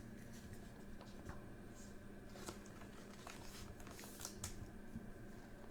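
Faint rustles and light ticks of trading cards being handled, over a low steady room hum.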